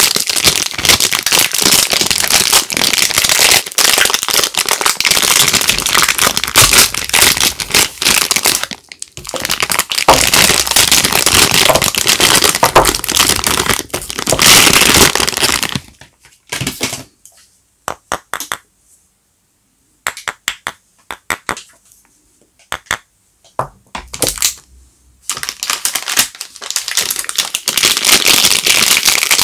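Soap wrappers being crinkled and torn open by hand: a dense, loud crackling rustle. It breaks off briefly about nine seconds in. Between about sixteen and twenty-five seconds it thins to scattered clicks and crackles with short silences, then turns dense again.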